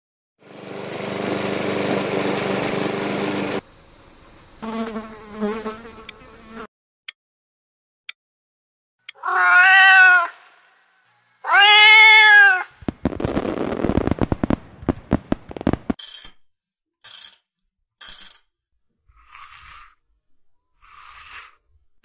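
A medley of cat-prank sound effects. Its loudest part is two cat meows in the middle, each rising and then falling in pitch. Around them come a sustained noisy sound, a few clicks, a few seconds of rapid pulsing and several short high squeaks.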